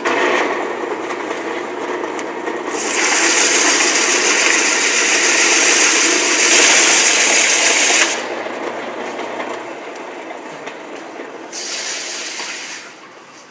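Sandpaper held against a foam sphere spinning on a wood lathe: a steady hissing rasp, much louder from about three to eight seconds in and again briefly near the end. The sanding takes off the small chips left by the turning tools.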